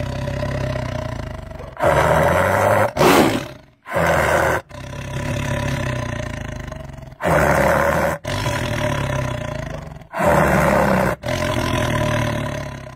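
A horse vocalising in a run of separate pieces, each a second or two long and cut off sharply, with short gaps between them.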